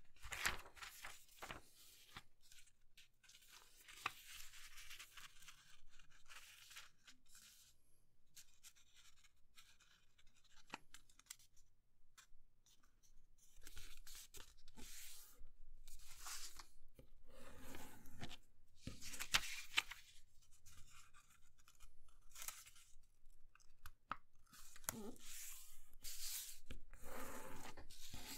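A sheet of paper being folded and creased by hand: crackling paper rustles and fingers sliding along the creases, coming in irregular strokes with short pauses between.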